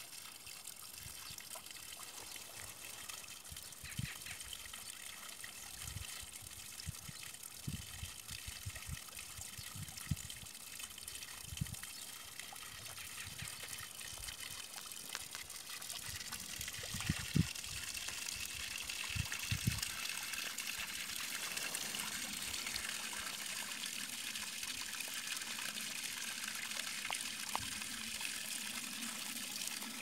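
Running water trickling steadily, growing somewhat louder about twenty seconds in, with scattered low thumps through the first twenty seconds.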